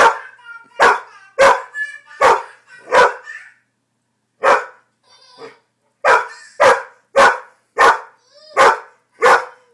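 Rhodesian ridgeback barking: a run of loud single barks about every two-thirds of a second, broken by a pause of a second or more near the middle, then another quick run of barks.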